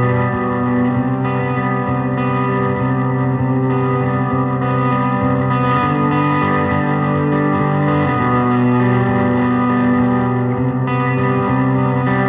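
1984 Gibson The SG electric guitar played through an Altergear effects pedal: long-sustained notes and chords that change every second or two, with a thick, distorted tone.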